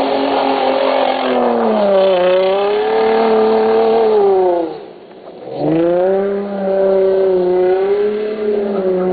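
Infiniti FX35's 3.5-litre V6 revving hard as the SUV drifts in circles, its pitch wavering up and down. About five seconds in the revs fall away sharply for half a second, then climb straight back up.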